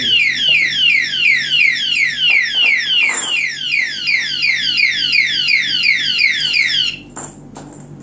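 Kinbar alarm padlock's electronic siren sounding continuously after its chain is disturbed a second time: a fast, loud run of falling chirps that cuts off abruptly about seven seconds in.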